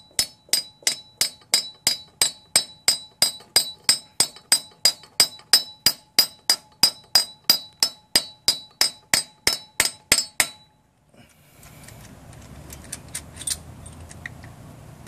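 Hammer blows on a bushing-installer drift in a steady rhythm of about three a second, each with a bright metallic ring, driving a 20 mm freeze plug into a coolant passage of a Mazda 12A rotary engine's intake. The blows stop about ten and a half seconds in.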